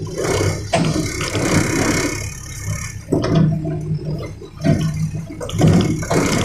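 Cat excavator's diesel engine working, with repeated surges of rushing, gravelly noise from stones being moved.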